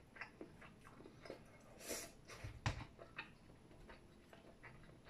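Faint eating sounds: chopsticks clicking against a plastic food container and a person chewing, as scattered short clicks with a louder knock about two and a half seconds in.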